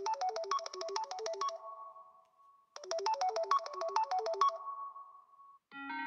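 Samsung Galaxy S23 FE ringtone: a fast melody of about ten bright notes a second, played twice, each time ending on a held note that fades out. A different ringtone starts just before the end.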